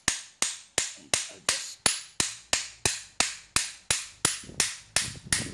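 Hammer striking the steel body of an alternator overrunning clutch pulley in quick, steady blows, about three a second, each with a short metallic ring, to push the inner clutch assembly out.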